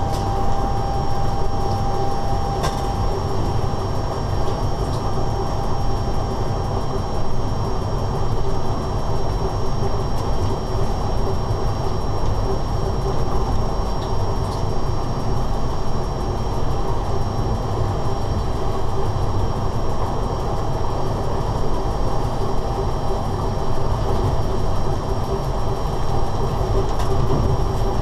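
Steady rumble and rattle inside the driver's cab of an electric locomotive running at speed along the track. A thin high whine stops about two and a half seconds in.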